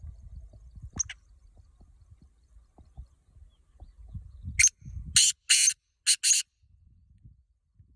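Black francolin calling: one harsh phrase of five short notes in quick succession, a little past halfway. Before it there is a low rumble and a single sharp click about a second in.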